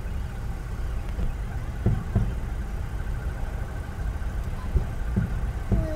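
Distant fireworks going off: four dull booms, two close together about two seconds in and two more near the end, over a steady low rumble of car engines idling.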